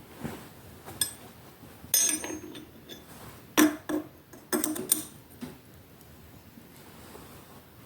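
Steel spanner on the lock nut of a metal planer's tool slide, tightening it: a series of short, sharp metallic clinks and knocks, the loudest bunched about three and a half to five seconds in.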